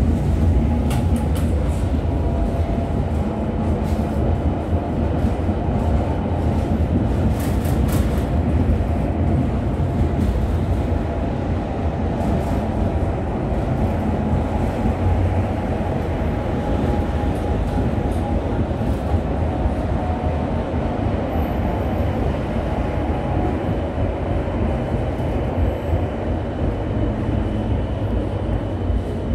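V3A-2010-CA articulated tram heard from inside the car while running along the track: a steady low rumble of wheels and running gear, with a few sharp clicks and rattles in the first eight seconds and a faint steady whine joining in past the middle.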